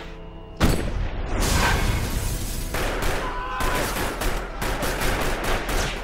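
Film gunfight sound: after a brief low hush, a sudden loud gunshot about half a second in, then a long run of rapid, overlapping gunfire.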